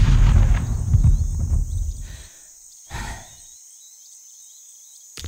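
Low rumble of a cartoon blast dying away over about two seconds, from a blaster that has just gone off in the creature's face. A short, softer burst comes about three seconds in, over faint high chirping like crickets, and another low rumble starts at the very end.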